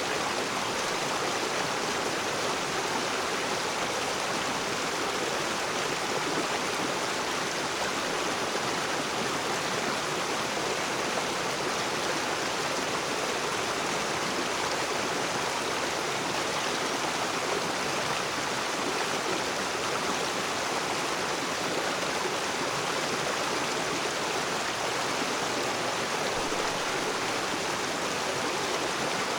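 A rocky river rushing and splashing over stones, a steady water noise.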